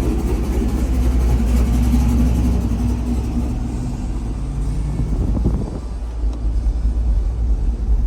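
Engine of a manual-swapped GMC Sierra pickup pulling while driving, a steady low drone whose note drops and dips briefly about five to six seconds in before picking up again.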